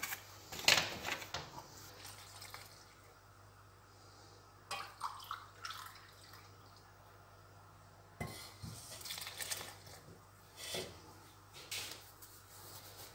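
Milk being poured little by little into flour in a mixing bowl, with scattered clinks of kitchenware against the bowl; the sharpest clink comes about a second in.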